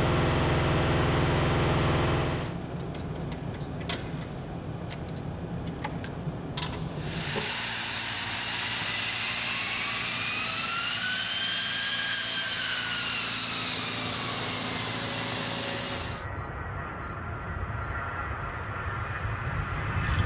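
A-10 Thunderbolt II's TF34 turbofan engines whining, the pitch climbing and then falling away again over several seconds. Before the whine come a few sharp clicks.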